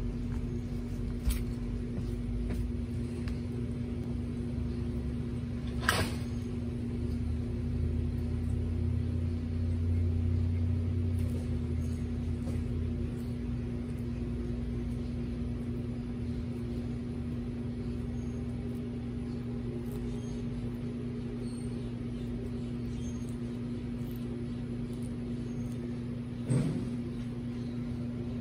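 Steady low mechanical hum with a constant tone, swelling slightly from about eight to thirteen seconds in. A few sharp clicks cut through it, the loudest about six seconds in and another near the end.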